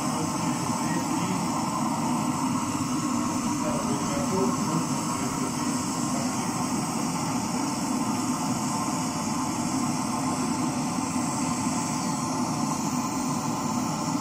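Steady, unbroken mechanical roar, even in level throughout, with a faint murmur of voices.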